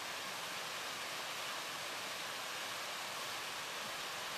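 Creek water rushing steadily down a small cascade over smooth granite slabs.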